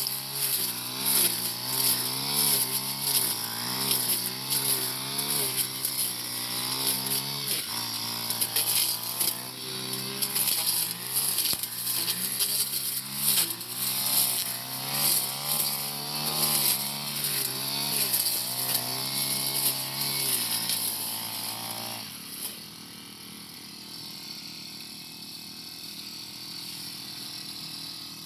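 Four-stroke brush cutter engine running hard, its pitch dipping and rising again about once a second as the blade is swung through tall grass and brush. About 22 seconds in the throttle is let off and the sound drops to a much quieter, steady running.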